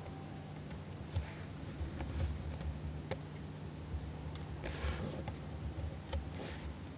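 Light, irregular clicks and taps of fine tweezers and tiny plastic model aircraft being handled and set down, with a brief rustle about five seconds in, over a faint low hum.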